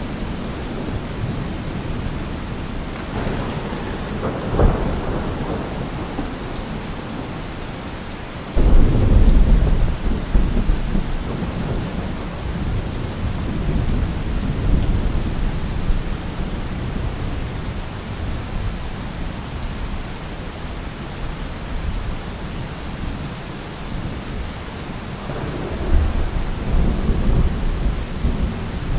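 Steady heavy rain with rolling thunder: a sharp crack about four and a half seconds in, then a sudden loud low thunderclap about eight and a half seconds in that rumbles away over several seconds, and another rumble near the end.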